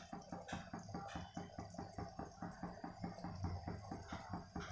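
Pot of water with vegetables heating toward a boil, faintly bubbling in quick, irregular small pops, several a second, over a low steady hum.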